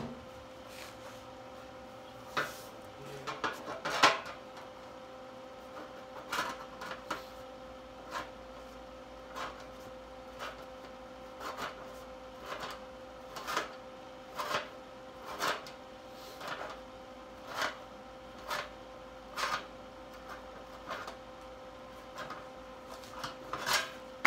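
Hand-tool work on a steel truck roll pan: a run of short clicks about once a second, with a louder metallic knock about four seconds in, over a steady hum.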